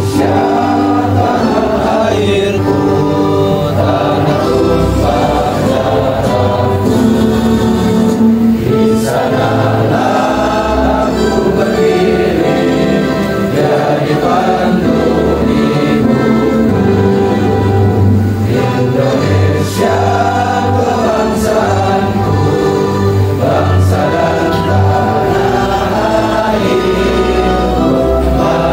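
A choir of voices singing together over instrumental accompaniment with a steady low bass line.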